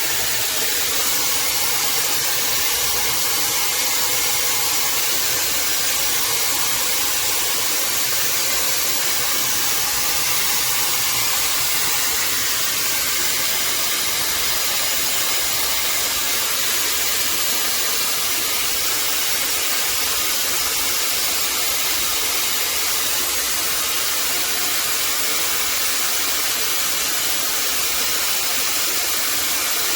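Shark FlexStyle air styler and hair dryer running steadily: a constant even rush of air from its motor and fan, starting abruptly just before this stretch and holding level throughout.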